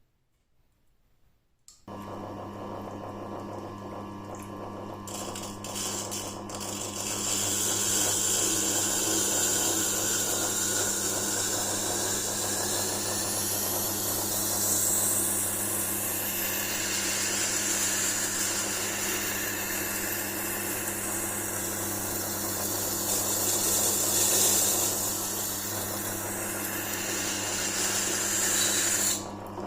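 Electric sharpening machine's grinding stone switched on about two seconds in, its motor humming steadily. From about six seconds in, a folding pocket-knife blade is ground against the turning stone with a loud, hissy scraping that stops shortly before the end.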